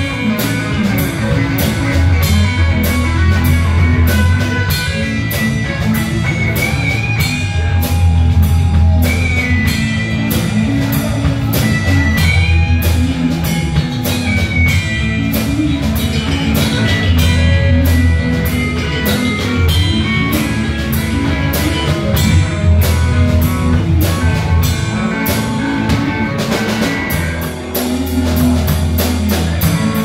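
Live rock band jamming: electric guitars and a drum kit playing together over a steady drum beat, with a lead guitar line sliding between notes and no vocals.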